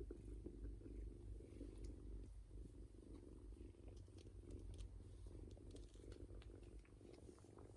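A kitten purring steadily and faintly, with a few small clicks over the purr.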